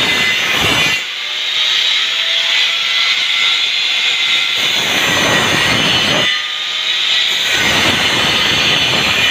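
Handheld angle grinder with its disc spinning at speed, biting into stainless steel square tubing three times: briefly at the start, for a couple of seconds about halfway, and again near the end. Between the cuts the motor whines freely.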